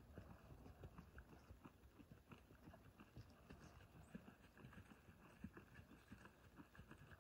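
Faint hoofbeats of a ridden horse moving around a dirt round pen: soft, irregular thuds.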